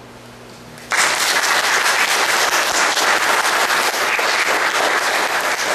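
A faint lingering note from the end of a violin and piano piece, then about a second in an audience starts applauding, loud and continuous.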